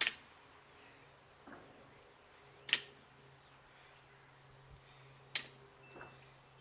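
Barbell with bumper plates clacking sharply each time it touches down at the bottom of a deadlift rep, three clacks evenly spaced about two and a half seconds apart, with fainter knocks between them as the bar is lifted.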